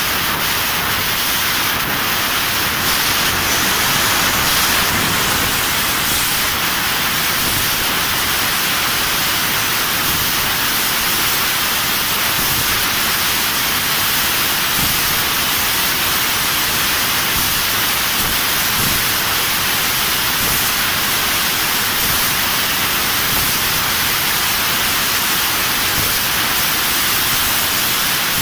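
Fiber laser tube cutting machine cutting a round metal tube: a loud, steady hiss of the assist-gas jet at the cutting head as the beam burns through the wall, with no breaks.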